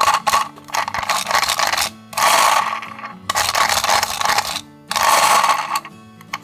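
Toy minicars rolling down a slope, heard as several bursts of rolling noise about a second long each, over background music.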